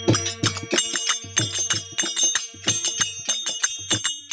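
Instrumental opening of a folk bhajan: a harmonium holds a steady chord while a dholak beats a rhythm of low strokes and metal jingles clash sharply on the beat.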